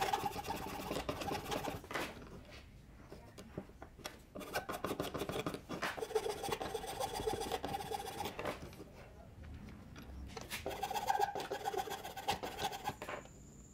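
A steel hand file rasping back and forth over a small metal part clamped in a bench vise, with a metallic ring under the strokes. It comes in three spells of quick strokes, with short pauses at about two seconds and about nine seconds in.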